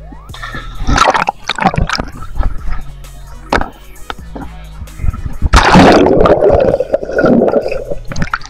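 Music with a steady bass line plays under sea water sloshing and splashing. A loud rushing splash about two thirds of the way in is the loudest sound.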